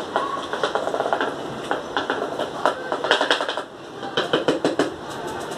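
Plastic protein scoop and tub being handled: a string of quick clicks and knocks, clustering into a rapid rattle around the middle and again near the end.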